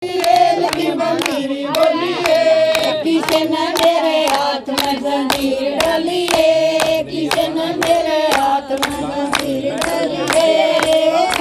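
A group of women singing a Haryanvi folk song together, with steady hand-clapping keeping time at about three claps a second.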